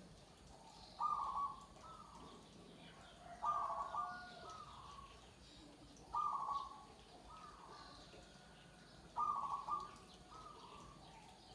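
Zebra dove (perkutut) cooing: four repeated coo phrases about every three seconds, each a short run of linked notes.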